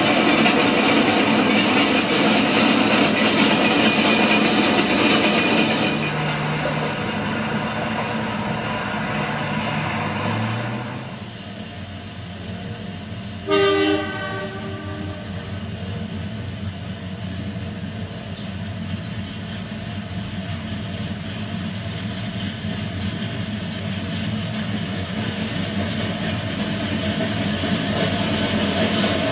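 Model stock train rolling along the track, with a steady clatter and rumble of the wagons. About a third of the way in, one short diesel horn blast sounds as the 48 class locomotive nears a level crossing. After it the rolling is quieter, then builds again as the wagons pass.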